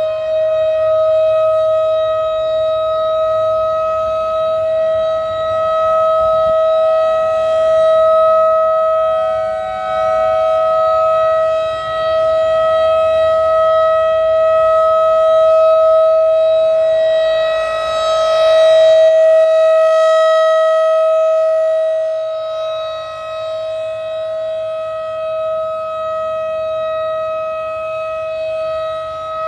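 Federal Signal 2001-DC outdoor warning siren sounding a steady alert tone, held at one pitch during a three-minute alert test. Its loudness swells and dips slowly as the rotating siren head sweeps around.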